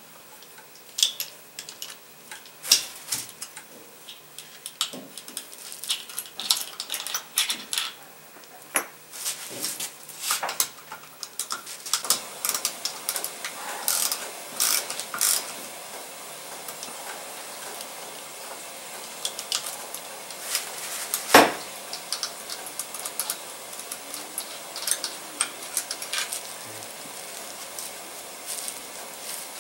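Irregular metallic clicks and clinks of a ratchet wrench and small steel bolts and springs being worked off a transmission valve body and set down on the bench, with one sharp metal knock about two-thirds of the way through.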